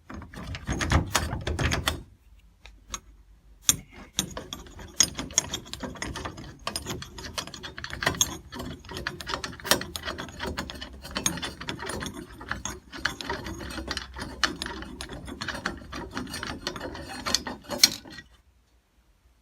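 Screwdriver backing out the screws that hold an old doorknob's plate on, making dense ratcheting clicks and metal scraping. There is a short lull about two seconds in, then steady clicking until the screws are out near the end.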